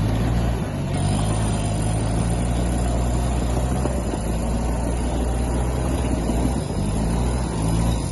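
Off-road 4x4 vehicle's engine running steadily, its pitch shifting slightly now and then.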